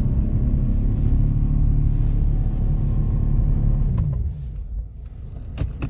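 Car engine running steadily; about four seconds in its note drops and it goes quieter as the car eases off, followed by a couple of sharp clicks near the end.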